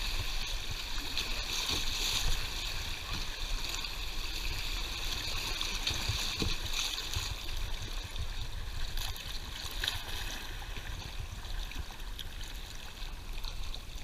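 Fast creek water rushing and splashing around the hull of a kayak running a rough riffle: a steady rush that eases slightly near the end.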